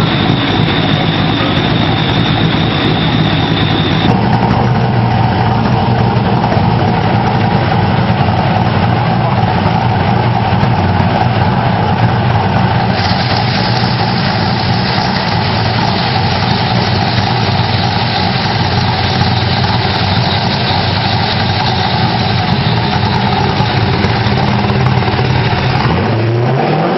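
A vehicle engine running steadily at a fairly constant speed, its tone shifting slightly a few times, with a quick change in pitch near the end.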